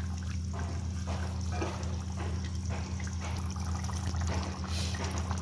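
Thin beef curry gravy sloshing and bubbling as a spatula stirs and lifts the meat in a pan, in irregular soft strokes over a steady low hum.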